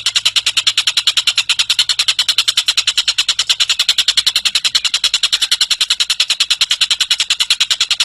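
Tengek cililin bird singing a long, unbroken trill: fast, even, high-pitched notes repeated about ten times a second.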